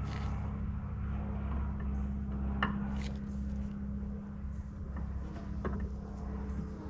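A steady low hum with a few light, sharp clicks and taps of hand tools on metal during engine teardown, about four of them spread through.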